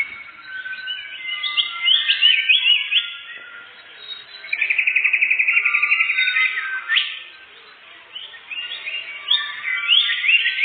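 Songbird singing a varied run of quick whistled phrases and upward sweeps, with a fast, even trill lasting about two seconds near the middle.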